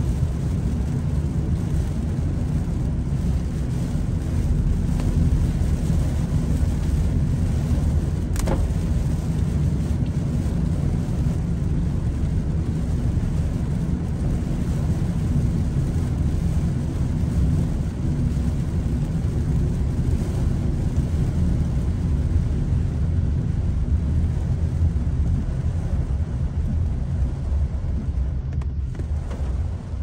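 Car driving on a wet road in heavy typhoon rain: a steady low rumble of tyre and road noise mixed with rain on the car.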